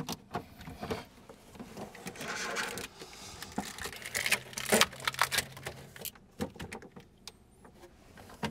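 Hands handling battery cables and plastic corrugated wire loom, making rustling and scattered clicks and taps, busiest in the middle.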